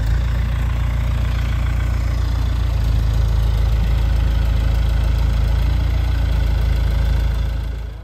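Lull telehandler's engine running steadily, a loud low drone, while its boom holds a roof truss aloft; the sound fades out near the end.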